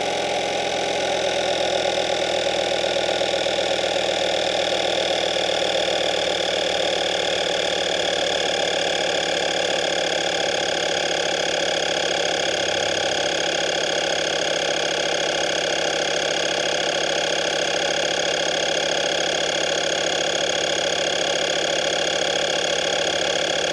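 Audew 12 V DC portable air compressor (tyre inflator) running steadily under load, pumping air into a car tyre through its hose. It is a loud, even mechanical drone whose pitch sinks slightly over the run.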